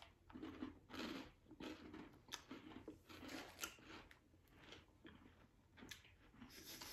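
Faint crunching and chewing of crisp meringue biscuits topped with hazelnut, in a string of irregular short crunches a few times a second.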